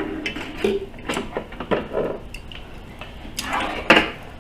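Chopsticks and metal tongs tapping and scraping on a cast iron pot-lid griddle as pieces of meat are picked up: scattered clicks and a few short scrapes.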